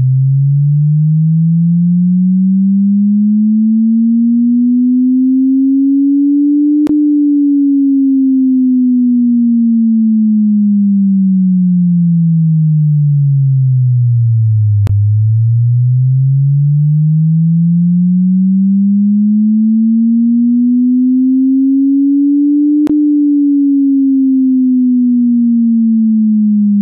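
Sine-wave audio test tone sweeping slowly between 100 Hz and 300 Hz: a low pure tone that rises for about seven seconds, falls for about eight, rises again and is falling once more near the end, with a faint click at each turn.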